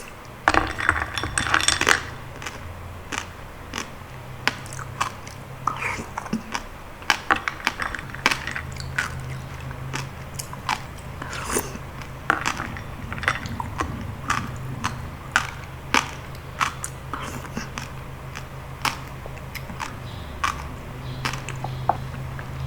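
Close-miked eating of jelly-like palm fruit (sea coconut) in passion fruit juice: wet, sticky mouth clicks and chewing, with a dense patter of clicks and clinks from about half a second to two seconds in, over a low steady hum.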